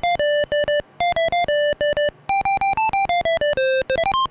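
A simple one-voice electronic beep tune in the style of an old computer's speaker: quick staccato buzzy notes, a few held a little longer, ending on a short rising run.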